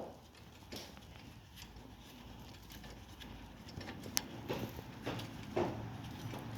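Faint handling noises of a brake caliper bolt being put back in, with a few light metallic clicks and knocks, the sharpest about four seconds in.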